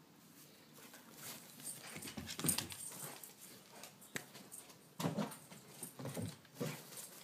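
Bearded collie making short whimpering sounds in bursts while playing with a toy, mixed with sharp clicks and rustling.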